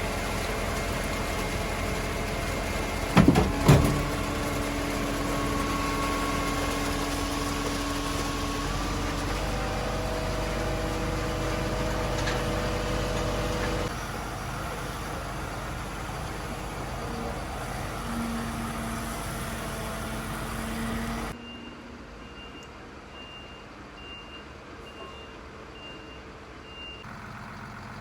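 Heavy truck engine running steadily, with two loud clanks about three seconds in. After a sudden drop in level, a truck's reversing alarm beeps repeatedly.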